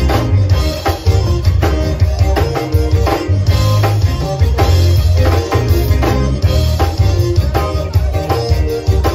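Live zydeco band playing, with electric bass guitar and drum kit keeping a steady dance beat under a heavy bass line.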